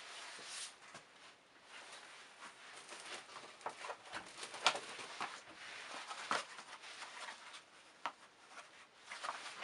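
Quiet handling noise: soft rustling with a few light clicks and taps as shoes are picked up and moved.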